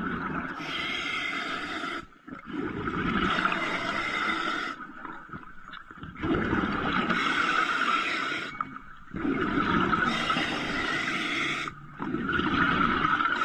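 A diver breathing underwater through a regulator fed by a surface compressor hose: about five breaths, each a two-to-three-second rush of regulator hiss and bubbling, separated by short pauses.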